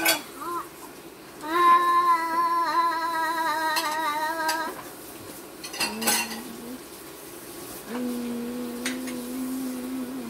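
Dishes and cutlery clinking now and then, with a voice humming long held notes: a higher one a couple of seconds in lasting about three seconds, then lower ones later.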